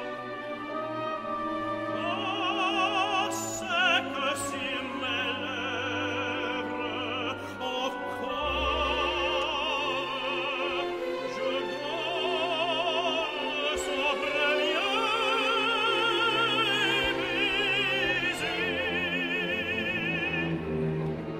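A tenor sings an operatic French aria over an orchestra in a full voice with strong vibrato. The voice stops near the end, leaving the orchestra.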